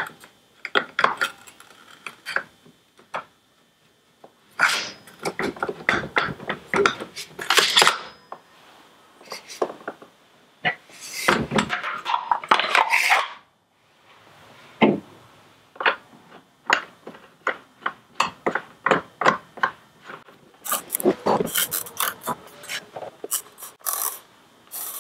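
Beretta A400 xCel semi-automatic shotgun being reassembled by hand: metal parts clicking, knocking and scraping as the barrel and forend are fitted back on, with the forend cap screwed down near the end.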